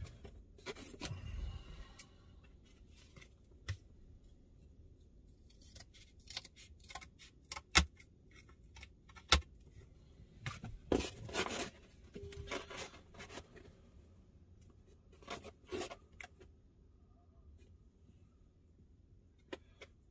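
Hand work on car-stereo install parts: scattered sharp clicks and short rustling and snipping sounds, several of them loud single clicks spread through the stretch, with quiet gaps between.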